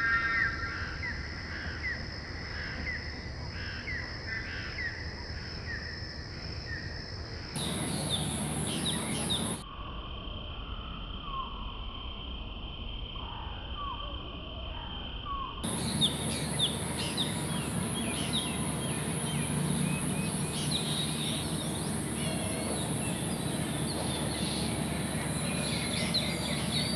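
Outdoor background of birds chirping and a steady high-pitched insect drone, the ambience changing abruptly several times where clips are joined.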